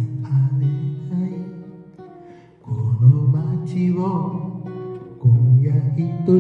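Capoed acoustic guitar playing slow chords: a fresh chord is struck about every two and a half seconds and left to ring and fade.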